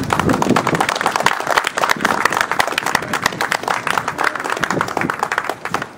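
Audience applauding: many quick overlapping hand claps that die down at the end.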